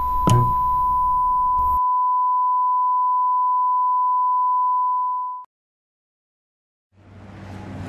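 Steady 1 kHz test tone of the kind played with TV colour bars, holding one pitch for about five seconds and cutting off suddenly. Static hiss and a brief thump sound under its first two seconds, and after a short silence outdoor background noise fades in near the end.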